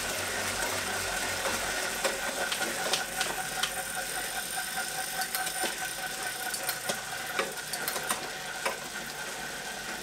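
Wahoo KICKR CORE direct-drive smart trainer's flywheel and the bike's chain and cassette whirring as the rider eases off after a sprint. A steady whine slowly fades as the trainer spins down, with scattered ticks.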